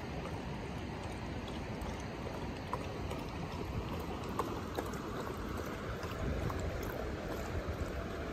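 Steady rush of a flowing stream, with a few faint ticks and small splashes scattered through it.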